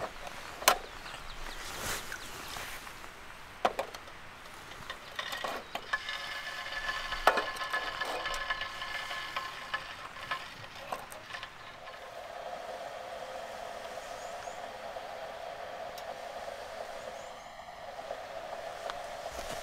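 Sharp clinks and knocks of metal camp cookware, with food sizzling.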